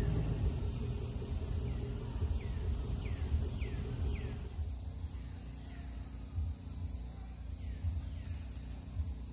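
An SUV's engine running low as it moves a trailer into position, easing off about four and a half seconds in. Insects buzz steadily throughout, and a bird gives a string of short falling chirps.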